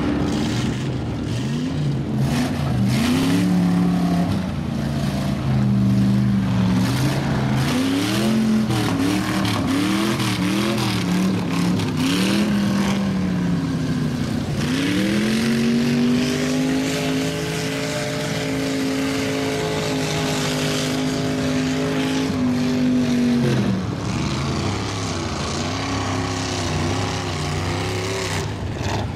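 A lifted mud truck's V8 engine revving hard as its tractor tires spin in the mud pit: a run of short rises and falls, then a climb to high revs held for several seconds before it drops back and blips again. The truck is stuck, trying to dig its way out.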